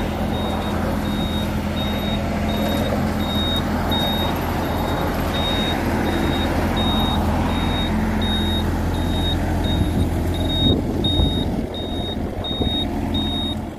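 Kubota mini excavator running, its diesel engine steady under a high beeping travel alarm at about three beeps a second, with a few clanks about ten seconds in.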